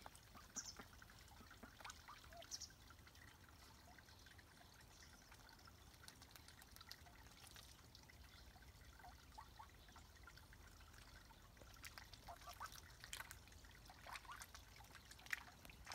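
Faint water sounds from young Swedish Yellow ducks dabbling and splashing at a pond edge, mixed with soft quacks; the small splashes and calls come thicker in the last few seconds.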